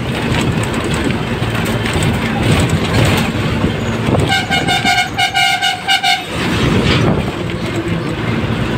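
A vehicle horn beeping in a rapid string of short toots for about two seconds midway, over steady road noise and engine drone heard from inside a moving vehicle.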